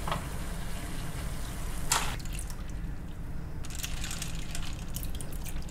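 Water splashing about two seconds in, then ice cubes clinking and water sloshing in a steel bowl of ice water as lobster meat is stirred by hand and with chopsticks. A steady low hum lies underneath.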